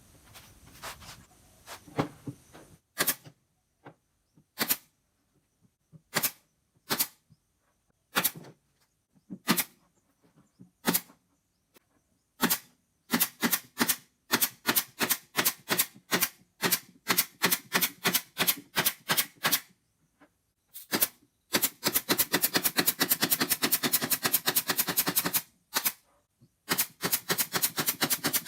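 Sharp clicking knocks, at first single and about a second apart, then in quick runs of several a second.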